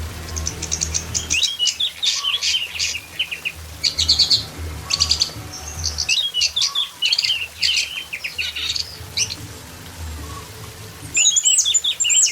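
Orange-headed thrush song: a fast, varied run of high chirps, trills and rattling phrases, as used for training a songbird, over a faint low hum.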